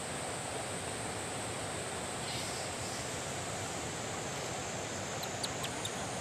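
Steady outdoor rushing noise with no breaks, and a few faint small clicks about five seconds in.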